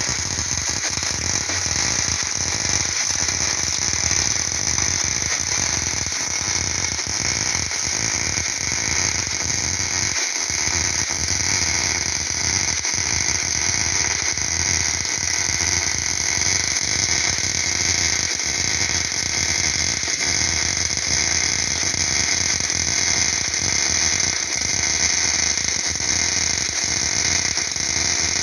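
MIG welding with CO2 shielding gas on an overhead weld: the arc runs unbroken with a steady crackling, frying hiss.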